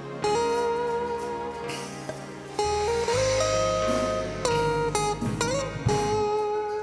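A gospel church band playing an instrumental passage: guitar over a strong bass line, with held lead notes that slide in pitch a few times about five seconds in.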